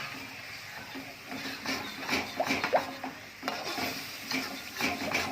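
A utensil stirring and scraping sauce in a hot pan, with repeated scraping strokes and a light sizzle from the simmering sauce.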